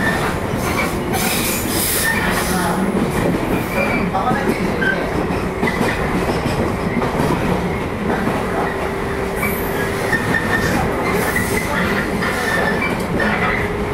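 JR 115 series electric multiple unit running: a steady rumble of wheels on rail with motor noise, a held tone for a few seconds near the middle, and a few short hissing bursts.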